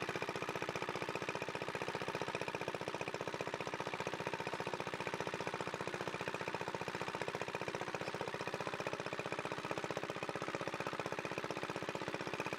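A small engine running steadily at an even speed, with a fast, regular pulse.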